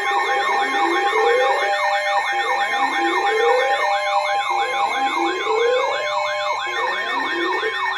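Several electronic sirens sounding at once: a fast warbling siren over slower rising wails that repeat about every two seconds, layered on steady alert tones.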